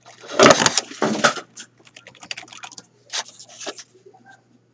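Typing on a computer keyboard: a loud, quick run of keystrokes in the first second and a half, then two softer bursts of key clicks.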